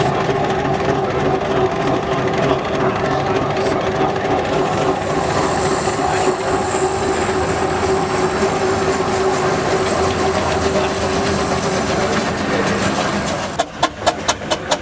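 Steam whistle blowing one long, steady note over a hiss of steam. About a second before the end it stops and a quick, regular engine beat of about four to five strokes a second takes over.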